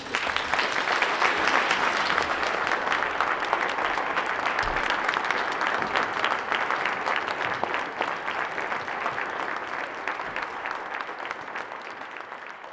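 Audience applauding. It starts all at once and slowly fades toward the end.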